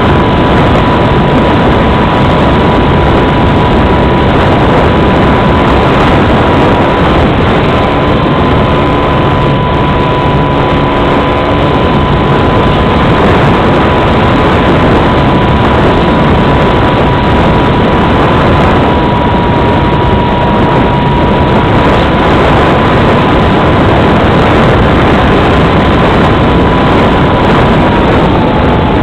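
Loud wind rush and motor noise picked up by a small camera riding on a radio-controlled model plane in flight, with a steady high motor whine that drops a little in pitch near the end.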